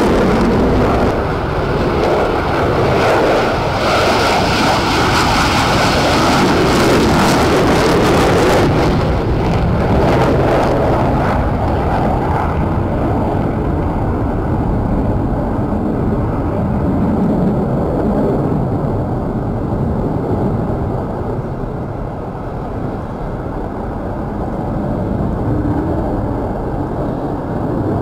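Loud jet noise from an F-22 Raptor's twin engines as it climbs away after takeoff. The harsh, hissing top of the noise dies away about a third of the way in, leaving a duller, steady rumble as the jet draws off into the distance.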